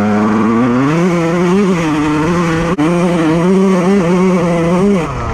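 Honda CR125 single-cylinder two-stroke motocross engine running under throttle while ridden over rough dirt. The engine note climbs about a second in and wavers up and down with the throttle. It cuts out for an instant near the middle and drops as the throttle closes near the end.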